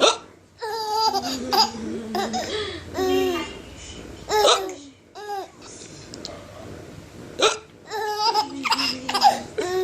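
A man hiccups repeatedly, each short, sharp hiccup set off by a five-month-old baby's high-pitched bursts of laughter and giggling.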